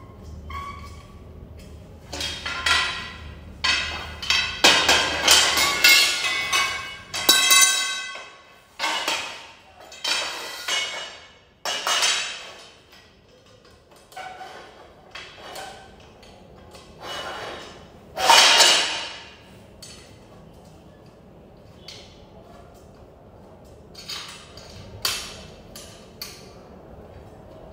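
Metal tubes and fittings of a clothes stand knocking and clanking together as it is assembled by hand, a string of separate hits, several of them ringing on briefly. The hits are thickest in the first half, with a loud one about 18 seconds in.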